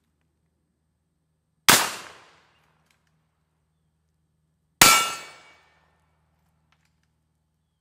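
Two suppressed rifle shots about three seconds apart from a .308 Winchester Remington 700 bolt-action rifle fitted with a Griffin Armament DL7 suppressor. Each is a sharp crack that dies away within about a second, and the second is followed by a metallic ring.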